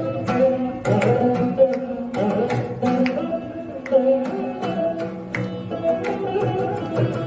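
Carnatic music in Simhendramadhyamam raga: a Saraswati veena plays gliding plucked phrases, accompanied by a mridangam whose sharp strokes fall several times a second.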